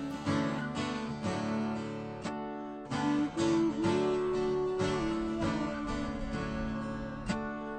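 Music: strummed acoustic guitar with a held melody line over it.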